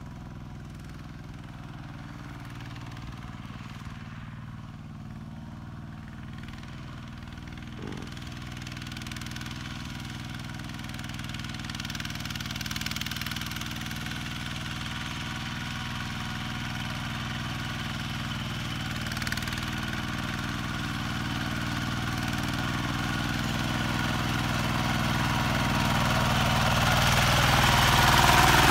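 Kubota RT120 single-cylinder diesel engine on a walking tractor running steadily while plowing, growing steadily louder as it comes close.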